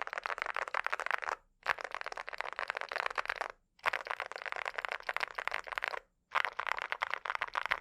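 Fast typing on a mechanical keyboard fitted with Cerakey V2 ceramic keycaps: a dense run of keystroke clacks, broken by three short silences.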